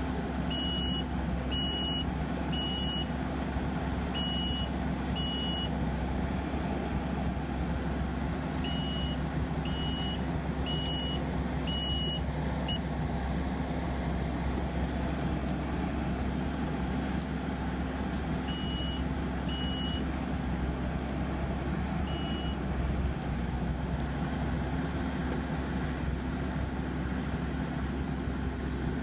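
Kubota SVL90 compact track loader with an AFE SS Extreme forestry mulcher running steadily, its diesel engine a constant drone. A high backup alarm beeps about once a second in several short runs during the first half.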